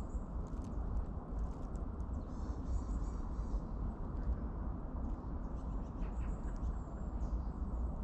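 Footsteps on a woodland path over a steady low rumble, with small birds chirping faintly, most clearly about two to three seconds in.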